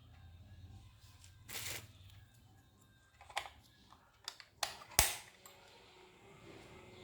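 A few scattered clicks and knocks of handling. There is a short rasp about one and a half seconds in, then several light clicks, and a sharp, louder click about five seconds in.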